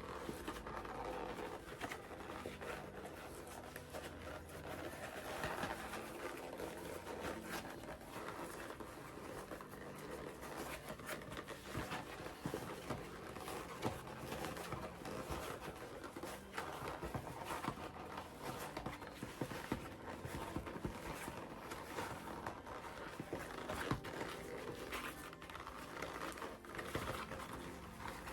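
A stiff vegetable-tanned leather bag, sewn inside-out, being forced right side out by hand: continuous creaking, squeaking and rustling of the thick, firm leather, with many short sharp clicks and crinkles, mixed with heavy breathing through the nose from the effort.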